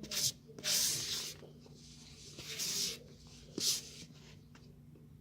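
Dry, crisp crunching of a mix of packed starches being bitten and chewed, in about four short bursts.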